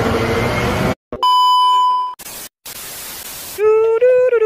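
Edited transition sound effects: the background noise cuts off about a second in, then a steady electronic beep sounds for about a second, followed by bursts of static hiss. A high-pitched voice starts near the end.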